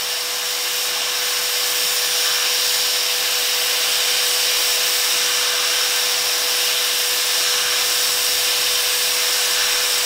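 Handheld heat gun blowing hot air onto a circuit board: a steady airy hiss with a constant hum from its fan, heating the solder that holds an old micro-USB charger port.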